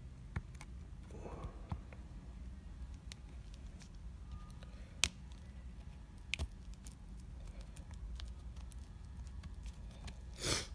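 Scattered faint clicks and ticks of small repair tools working on an iPad mini 2, with a sharper click about five seconds in, over a low steady hum.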